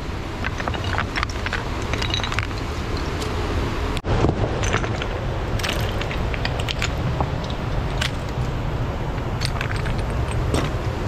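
Loose stones and gravel clinking and scraping as they are moved by hand, in scattered sharp clicks over a steady low rushing background.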